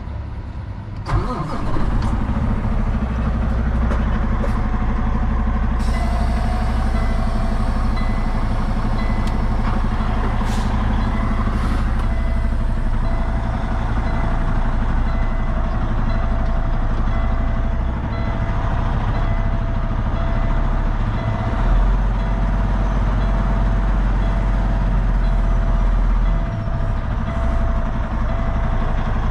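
Kenworth semi tractor's diesel engine cranking and starting about a second in, then running steadily, while a dashboard warning chime beeps over and over. The truck has a DEF (SCR system) fault that has put the engine in derate.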